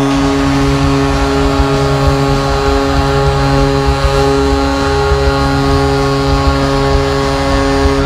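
Philadelphia Flyers arena goal horn blasting one steady multi-tone chord over a noisy arena background, stopping near the end.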